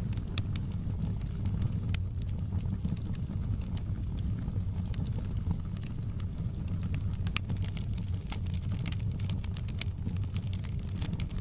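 Wood fire crackling in a fireplace: irregular sharp pops and snaps, thicker in the second half, over a steady low rumble of the flames.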